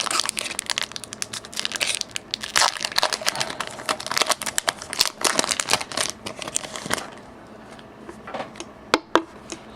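Foil wrapper of a Pokémon trading card booster pack crinkling rapidly as it is handled and opened, for about seven seconds; then it goes quieter, with a few faint clicks near the end.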